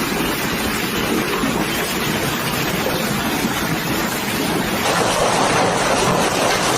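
Heavy hailstorm pelting down: a steady, dense roar of hail and rain that grows a little louder about five seconds in.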